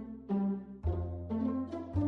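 Background music: a melody of short notes stepping up and down over a held bass note that changes about a second in.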